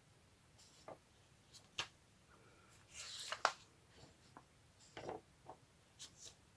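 Printed paper sheets being handled and the pages of a stitched paper booklet turned: a few soft, brief rustles and light taps, the fullest rustles about three and five seconds in.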